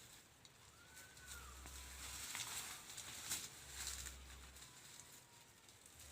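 Faint rustling and crackling of dry weeds and brush, with a short whistled bird call that rises and falls about a second in.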